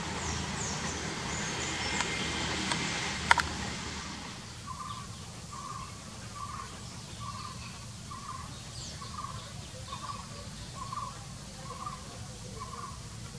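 A passing train's rumble, with a few sharp clicks from the rails, fades away over the first four seconds. After that a bird calls a single short note over and over, evenly, about one and a half times a second, over a faint low hum.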